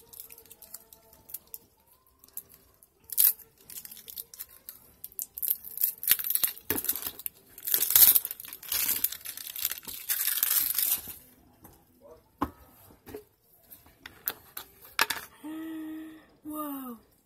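Clear plastic wrapping being torn and crinkled off a new, unopened slime tub: a run of rips and rustles, heaviest in the middle. Near the end come two short hummed voice sounds, the second sliding down in pitch.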